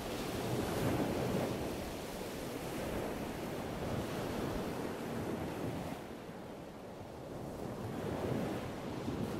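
Waves washing on a shore with wind: a low rushing noise that swells and eases every few seconds.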